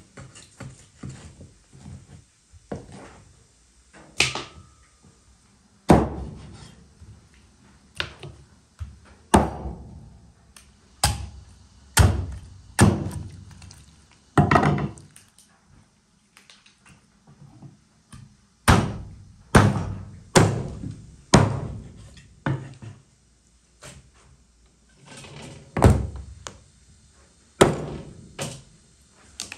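Meat cleaver chopping a raw goose into pieces on a wooden cutting board: a run of heavy, irregular thunks as the blade goes through the carcass and hits the board, many of them in quick groups.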